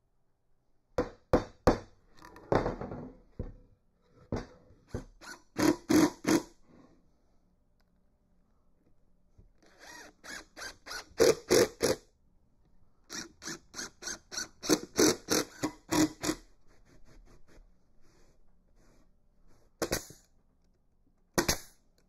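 Cordless impact driver hammering screws into the corners of a wooden box-joint hive box, in several short bursts. Near the end, two sharp single shots from a finish stapler.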